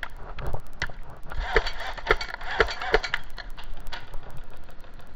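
Airsoft guns firing: a fast run of sharp clicks and snaps, heaviest between about one and a half and three seconds in, where louder cracks come about every half second.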